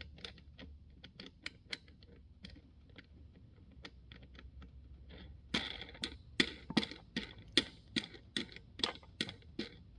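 A metal wing nut and washer being threaded by hand onto the threaded centre stud of a Raytech TV-10 vibratory tumbler: a series of sharp metal clicks and ticks, faint at first, then louder and more regular from about halfway in, at about three a second.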